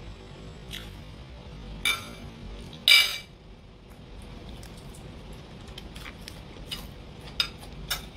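Metal spoon clinking and scraping on a ceramic dinner plate while eating: a few sharp clinks, the loudest about three seconds in, then several lighter taps near the end.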